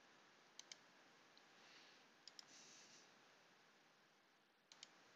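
Faint computer mouse clicks in near silence: three quick double clicks, the first under a second in, the second about two and a half seconds in, the third near the end.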